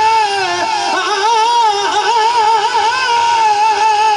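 Male naat singer holding a long, wavering sung note with a steady vibrato, amplified through a microphone and sound system, unaccompanied by instruments.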